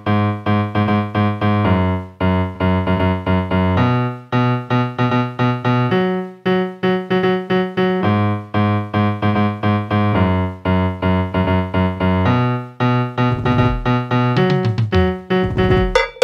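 Instrumental music on keyboard: piano-like chords struck again and again in a steady rhythm, about four a second, with no singing. Near the end a low tone slides downward twice.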